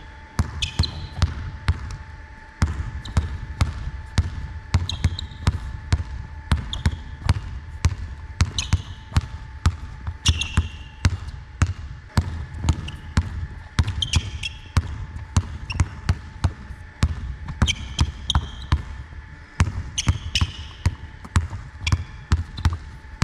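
A basketball dribbled hard on a hardwood court, quick rhythmic bounces, a few a second, through crossovers and hand changes. Sneakers squeak briefly on the floor now and then.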